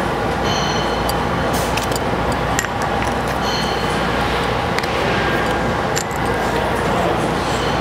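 Metal clicks and clinks of a hydraulic hose quick-connect coupler being fitted to a swage press head, over a steady loud machine noise.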